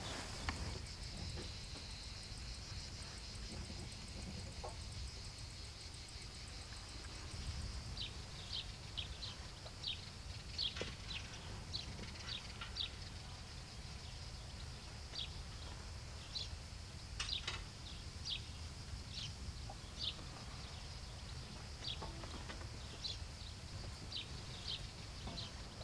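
Small birds chirping outdoors: a run of short, high chirps scattered irregularly from about eight seconds in, over low wind rumble. A steady high buzz fills the first eight seconds, then fades.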